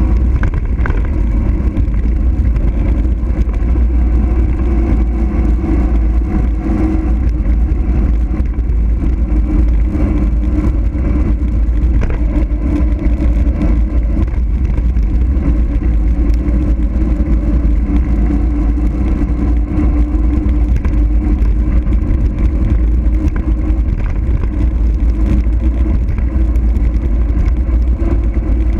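Steady wind rush and heavy low rumble on the microphone while riding a mountain bike downhill at speed.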